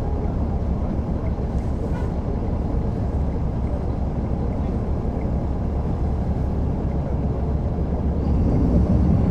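Caterpillar C13 diesel engine of a NABI 40-foot transit bus running under way, heard from the back of the passenger cabin. It grows louder about eight seconds in, as the engine pulls harder.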